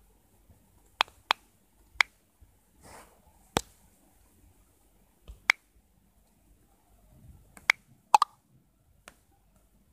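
Sharp single clicks at irregular intervals, about nine in all, with two in quick succession near the end, like taps on a phone's keyboard.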